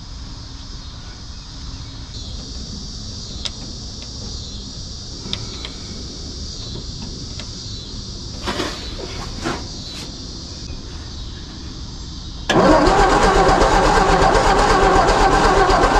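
1954 Ford F250's engine being cranked over by its 6-volt starter for about four seconds near the end, turning over steadily without firing: a spark check at the ignition wire shows no spark. Before that, only a few faint clicks.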